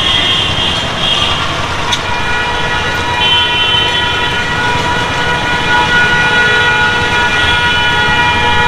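Dense road traffic with vehicle engine noise and horns sounding. A horn starts about three seconds in and is held for several seconds.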